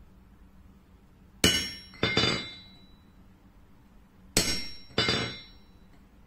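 Hammer blows on a chisel held against a red-hot steel bar on the anvil: four sharp metallic strikes in two pairs, each pair about half a second apart and about three seconds between pairs, each blow ringing briefly.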